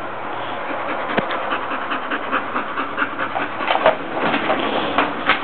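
Blue-nose pit bull panting quickly and steadily, with scattered light clicks and rattles from the wire crate and the plastic bottle she is working at.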